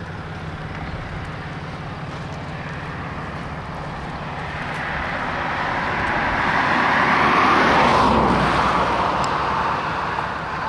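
A road vehicle passing by: its tyre and engine noise swells, peaks about eight seconds in with a falling pitch, then fades. A steady low engine hum runs underneath.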